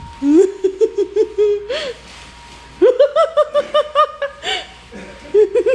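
A person laughing hard in three bouts of quick, high-pitched 'ha-ha-ha' pulses.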